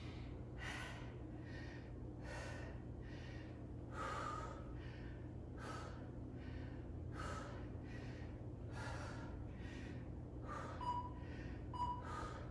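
Heavy, rhythmic breathing of a person exerting through an exercise set, one breath about every half to one second. Near the end come two short electronic beeps about a second apart, an interval timer counting down the end of the work period.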